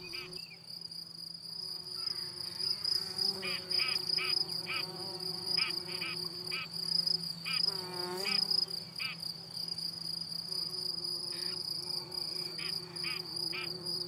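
Crickets chirring in a steady, high-pitched drone, with a few short bird calls scattered through it.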